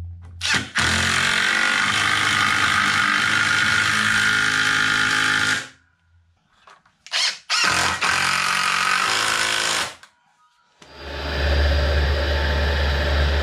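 Cordless drill running under load into a timber batten fixed to a brick wall, in two runs of about five seconds and two seconds with a pause between. About eleven seconds in, a circular saw starts and runs steadily.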